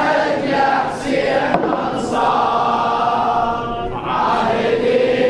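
A crowd of men chanting a Shia Muharram mourning refrain (latmiyya) together, with long held sung notes and short breaks between phrases.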